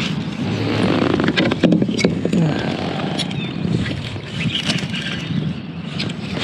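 Kayak being paddled and handled: a steady rushing water-and-movement noise with scattered knocks and clicks from the paddle and gear, then the rustle of a baitcasting rod being picked up and swung for a cast near the end.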